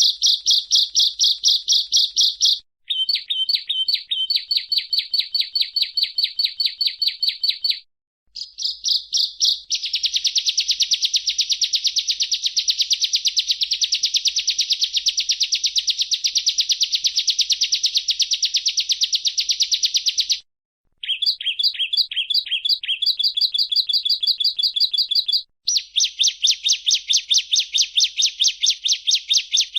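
Bar-winged prinia (ciblek) calling: long runs of fast, sharp chirps repeated many times a second, broken three or four times by brief silences.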